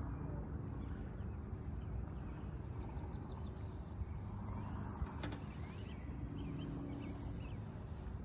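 Steady low outdoor rumble, with faint bird chirps in the middle and two light clicks about four and five seconds in.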